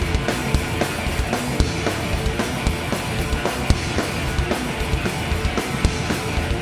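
Live rock band playing the instrumental opening of a song: drum kit with frequent hits under electric guitars and bass, in a garage-punk style.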